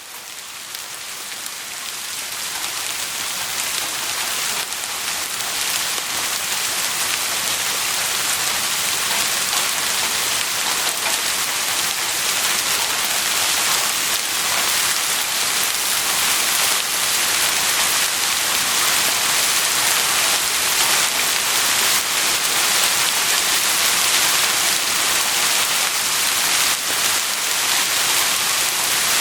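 Heavy rain falling steadily, a dense hiss of countless drops, fading up over the first few seconds and then holding steady.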